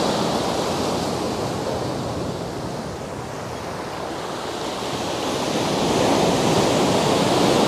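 Sea surf breaking and washing in against the foot of a sea wall, a steady rushing wash from a rising swell that eases about three seconds in and builds again near the end.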